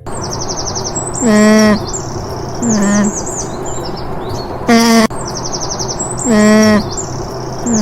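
Parrot giving loud, harsh squawks, four times, each about half a second long, over a run of high, quick chirps and a steady background hiss.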